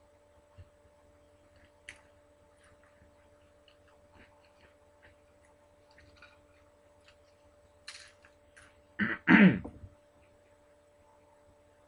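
Faint scattered clicks over a steady low hum, then about nine seconds in a short, loud vocal sound from a person, falling in pitch.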